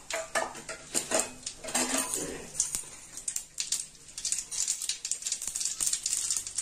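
Mustard seeds and urad dal spluttering in hot oil in an aluminium kadai: irregular sharp pops that thicken into a dense, steady crackle over the second half. This popping is the sign that the oil is hot enough for the tempering.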